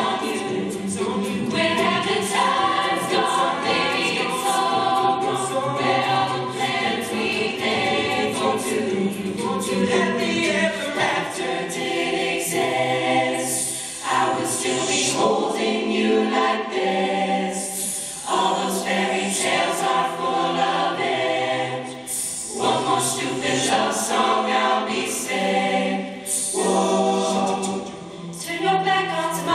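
Show choir singing a pop song in multi-part harmony through stage microphones, with a live band's drums keeping a steady beat behind the voices. The singing breaks into phrases, with short dips in loudness between them.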